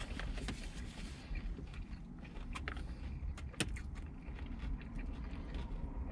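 Quiet car cabin with a steady low rumble and scattered light clicks and taps of food and a takeout container being handled, the sharpest tap about three and a half seconds in.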